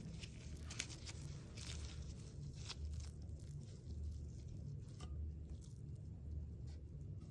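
Thick acrylic paint being worked with a mixing tool: soft squishing and scraping, with scattered small clicks throughout.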